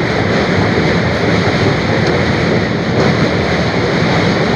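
A train running along the track, heard from on board as a loud, steady rushing rumble.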